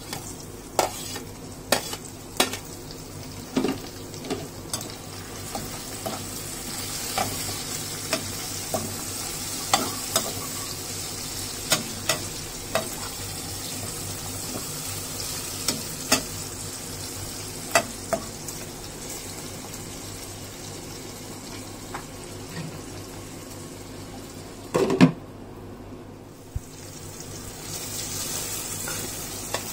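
Onions and tomatoes frying in oil in a wok, sizzling steadily, while a perforated metal spatula stirs and scrapes, clicking sharply against the pan. About five seconds from the end comes one much louder knock, and then the sizzling rises again as raw chicken pieces go into the pan.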